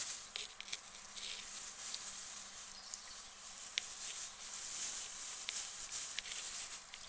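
Guinea pigs eating lettuce in wood-shaving bedding: crisp crunching and rustling, with many short sharp clicks scattered throughout.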